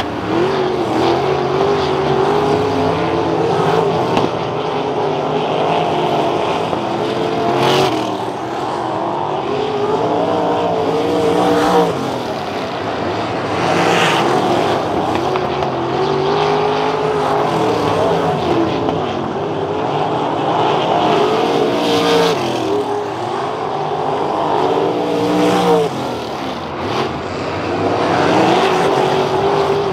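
Several 305 Racesaver sprint cars' small-block V8 engines racing on a dirt oval, pitch rising and falling again and again as they run the straights and back off into the turns. Sharper swells come every few seconds as cars go by.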